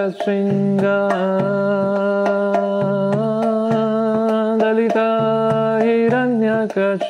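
A man singing a Hindu devotional chant in long, held notes over a steady drone, with light percussion strikes keeping time about twice a second.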